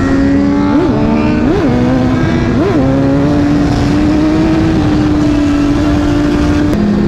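Sport motorcycle engine running at a steady road speed, with three quick throttle blips in the first three seconds and a drop in pitch near the end.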